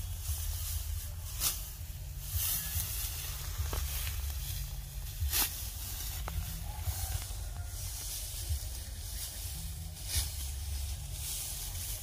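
Hand sickle cutting and gathering dry rice stalks: several short, sharp rustling swishes a few seconds apart, the strongest about a second and a half, five and ten seconds in, over a steady low rumble.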